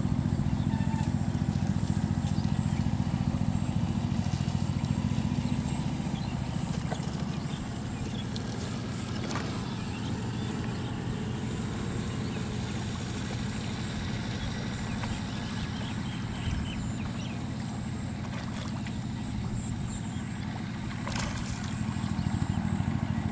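A motor running steadily with a low drone, louder for the first six seconds and a little quieter after, with a thin high steady tone above it.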